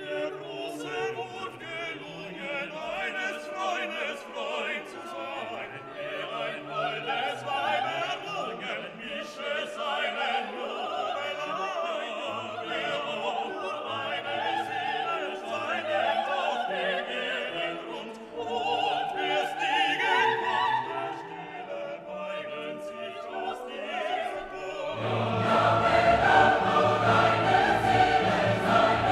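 Background classical music with operatic singing and orchestra, growing fuller and louder, with a choir and low strings, for the last few seconds.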